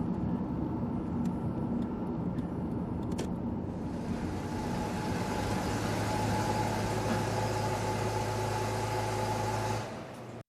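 A car driving: steady engine and road noise. A steadier engine hum comes in about four seconds in, and the sound falls away near the end.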